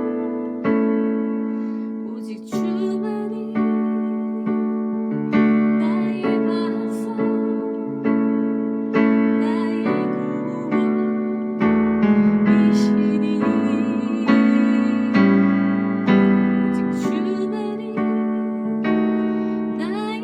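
Slow hymn played on a keyboard with a piano sound. Full chords are struck about once a second, each fading before the next.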